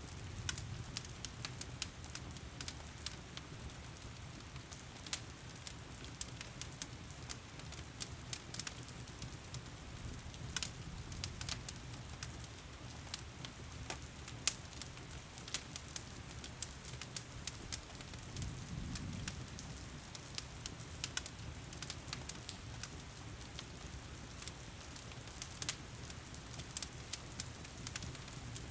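Log fire crackling with irregular sharp pops over steady rain hiss and a low rumble.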